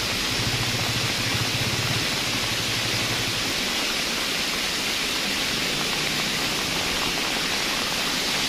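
Steady hiss of heavy rain falling. A low engine hum lies underneath for the first three seconds or so, then fades.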